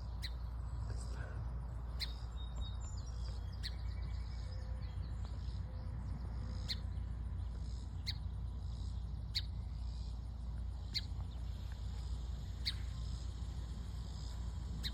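A bird repeating a single sharp chip note about every second and a half, with a few softer twittering notes a few seconds in, over a steady low rumble.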